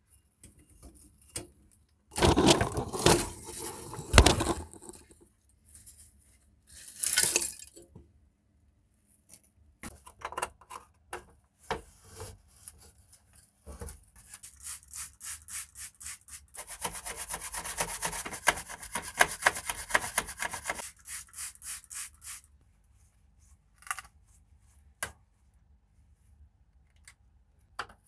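Hand-disassembly noises from rusted dispenser parts: bursts of scraping and rubbing as corroded metal is pried and worked loose. In the second half there is a longer stretch of rapid, even rasping strokes, and then a few sharp clicks as a screwdriver works at rusty screws in the plastic spout housing.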